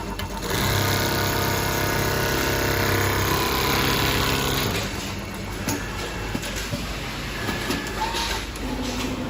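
Computer-controlled sleeping bag sewing machine running: a steady motor hum that changes to a rougher, busier sound about five seconds in.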